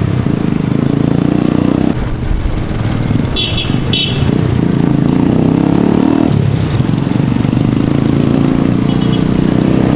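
A vehicle engine running on the move, its note dropping and picking up again about two seconds in and again past six seconds. Two short, high-pitched beeps sound about three and a half seconds in.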